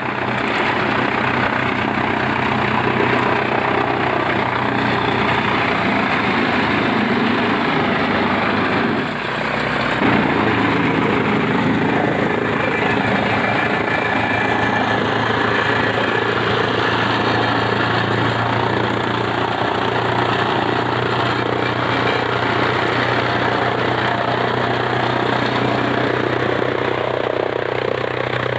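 Fodder chaff cutter (grass-cutting machine) running steadily, a loud mechanical drone with a constant hum, briefly dipping about nine seconds in.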